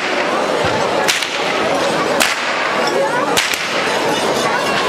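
Carnival drivers' long whips cracking sharply about once a second, three cracks and a fourth at the very end, over a steady murmur of the crowd.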